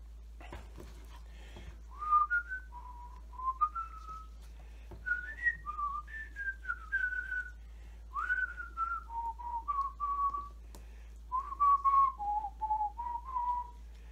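A man whistling a tune to himself in several short melodic phrases, starting about two seconds in. Before it come a few soft handling noises.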